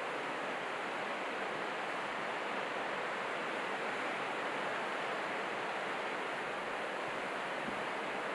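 Steady, even rush of surf and waves breaking on the shore.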